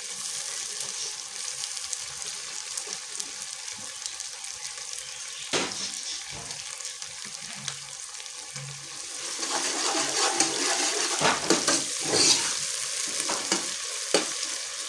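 Sliced onions and tomato sizzling in an aluminium pot on a gas burner, a steady hiss. From about halfway through, a steel ladle stirs the pot, scraping and clicking against the metal.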